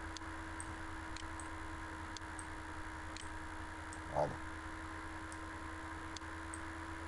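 Faint steady electrical hum of a desktop recording setup, with scattered soft computer-mouse clicks, and one brief low sound a little after four seconds.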